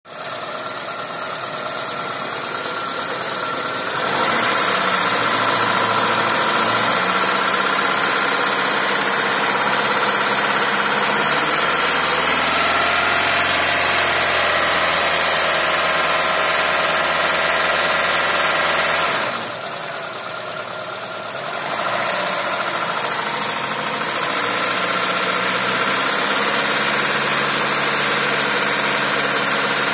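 ZAZ Sens engine running with a knock. It gets louder about four seconds in, its note shifts a few times, and it drops briefly around twenty seconds.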